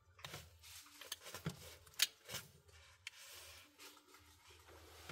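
Faint scattered clicks and light taps of small repair tools working on a smartphone's plastic and metal parts, about half a dozen over a few seconds, the sharpest about two seconds in.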